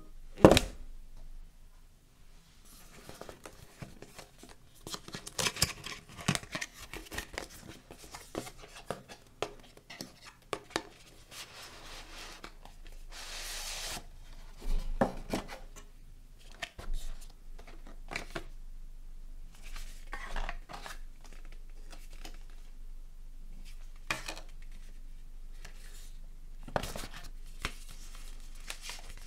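White cardboard packaging of a Peak Design car mount being opened and handled: paper and cardboard rustling with short taps and clicks of flaps and trays, and a longer rustling sweep about 13 seconds in.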